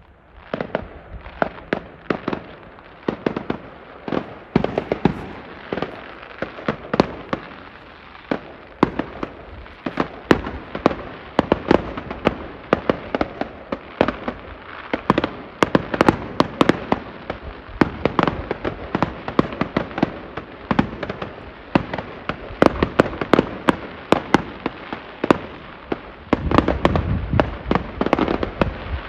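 Aerial fireworks bursting overhead: a dense, continuous run of sharp bangs and crackles, several a second, with a heavier low rumble near the end.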